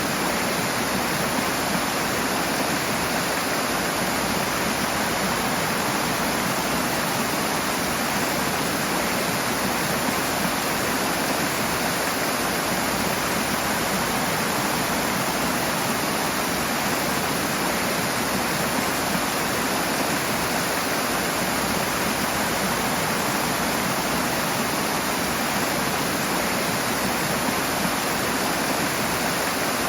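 Rushing water: a stream or small waterfall pouring steadily in an even, unbroken rush.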